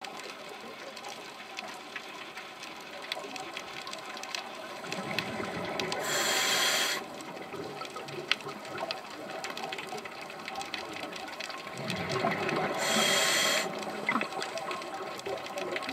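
Scuba diver breathing through a regulator underwater: two breaths about six seconds apart, each a sharp hiss of about a second set in a longer swell of bubbly noise. A faint crackle of small clicks runs underneath.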